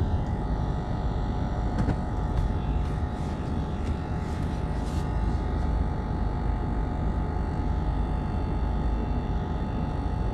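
Steady low rumble of a car driving slowly on a rough gravel road, heard from inside the cabin, with a few faint ticks about two to five seconds in.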